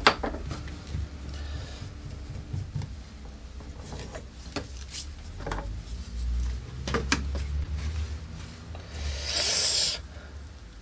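Stiff brush sweeping sawdust and wood slivers across a miter saw's metal table and throat insert, a scratchy rubbing broken by several sharp clicks and knocks of small wood scraps and the insert being handled, with one longer sweep near the end. The debris is clearing out of the wide gap around the stock insert.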